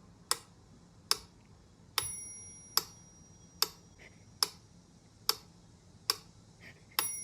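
Sharp, evenly spaced ticks, about one every 0.8 seconds, with a short high beep about two seconds in.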